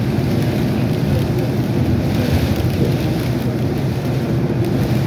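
Metro train running at speed, a steady low rumble of wheels and running gear heard from inside the passenger car.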